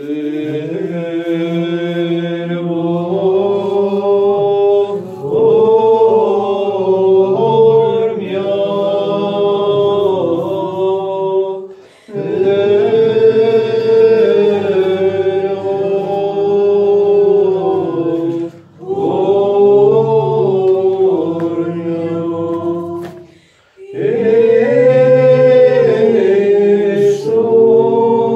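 A group of voices chanting a slow sung prayer in long, held phrases, with short breaks for breath about 12, 18 and 23 seconds in.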